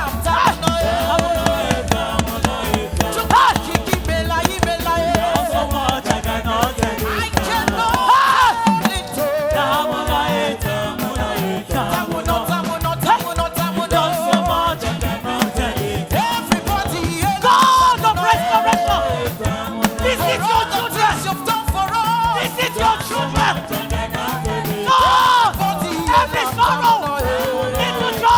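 Live gospel praise music from a church band, with a busy, steady percussion beat under sung melody lines.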